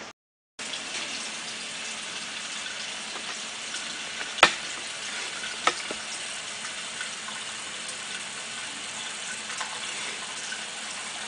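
Kitchen faucet running into a small saucepan held in a stainless steel sink: a steady splashing hiss of water that starts a moment in, with two sharp knocks of the pan, about four and a half and nearly six seconds in.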